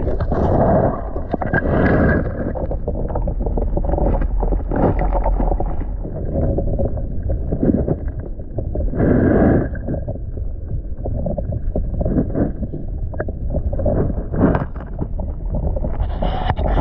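Wind rumbling on the microphone over small surf washing onto a shore of pebbles and boulders, swelling louder a few times as waves come in.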